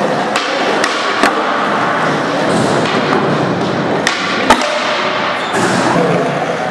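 Skateboard rolling on a concrete floor, with a handful of sharp wooden knocks from the tail popping and the board slapping down during flip-trick attempts; the loudest knock comes about four and a half seconds in.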